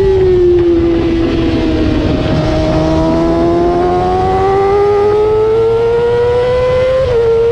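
Yamaha R6 race bike's inline-four engine at high revs, heard onboard: the note falls as the bike slows into a corner, then climbs steadily as it drives out through the bend, with a quick upshift near the end.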